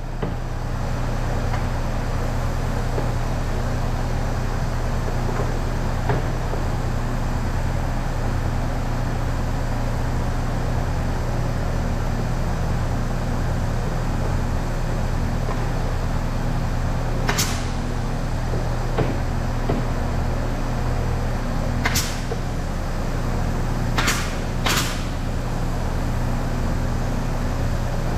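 Steady low machine hum of woodworking factory machinery running, with four sharp knocks, like wood or metal pieces striking, in the second half.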